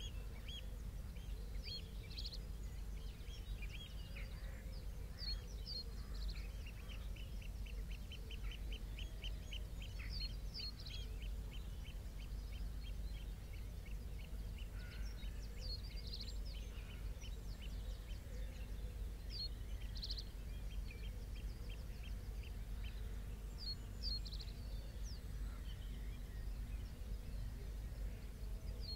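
Estuary marsh ambience: a steady low rumble under birds calling. A long run of repeated high notes, about three or four a second, comes twice, with scattered short chirps between.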